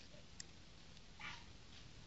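Near silence, with a light click of plastic building bricks being handled a moment in, and one short faint squeak just past the middle.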